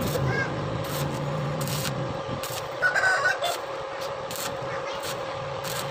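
Stick (electric arc) welder crackling and sizzling as the electrode burns along a motorcycle exhaust pipe, welding shut a leak in the pipe. The crackle comes in repeated sharp pops over a steady hiss.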